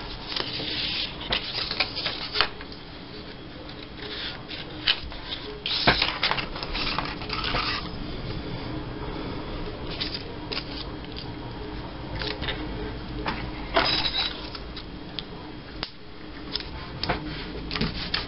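Strips of patterned scrapbook paper being handled and pressed down onto a paper tag: irregular rustles and light taps.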